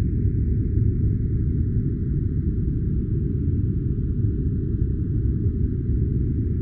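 A steady, deep, even noise with no high end and no changes: a generated white-noise-style track for sleep or study.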